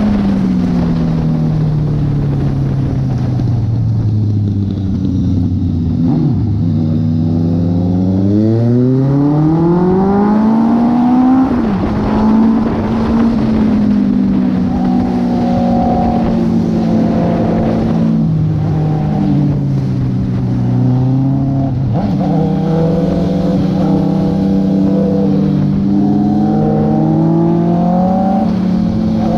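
Honda CB650R's inline-four engine heard from the saddle while riding. The note falls steadily for the first eight seconds or so as the throttle is rolled off, climbs sharply over the next few seconds under acceleration, then rises and dips a few more times through the rest of the ride.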